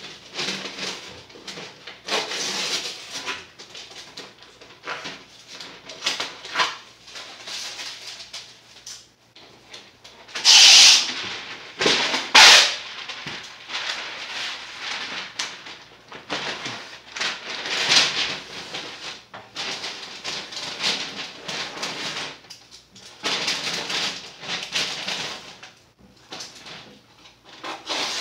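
Masking paper and tape being handled: irregular rustling and crinkling of paper, with two louder rips about ten and twelve seconds in.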